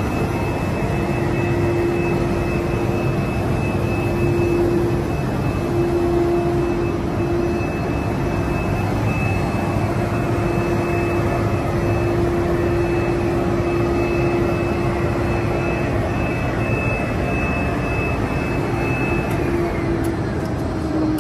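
SDA-1300 relief sanding machine running: its rotating sanding drums work MDF door fronts, with a dust-extraction unit, giving a steady loud whir with a hum and a high whine in it. The whine stops near the end.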